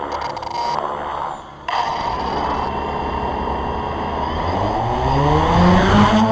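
Small engine of a radio-controlled model car catching and running about two seconds in, then revving up with a rising pitch near the end as it pulls away.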